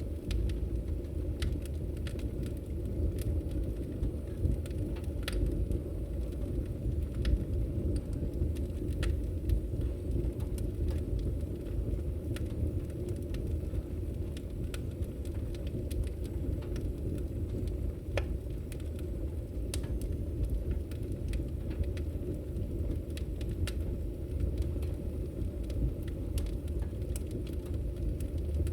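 Fire burning in a fireplace: a steady low rush of flames with scattered sharp crackles and pops, a few of them louder snaps.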